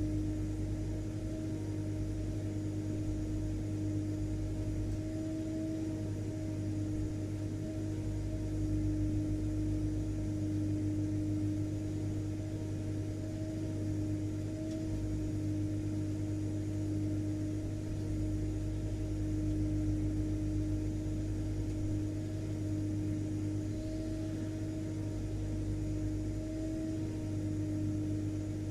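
Vacuum cleaner running steadily: a constant motor drone with a steady tone over a low hum, unchanging throughout.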